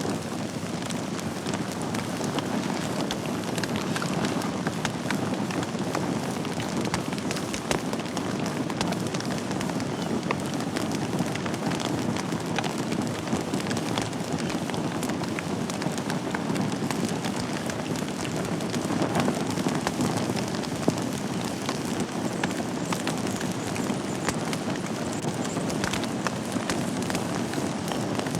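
Wood fire burning in a fireplace: a steady low rush of flame with frequent small crackles and pops throughout.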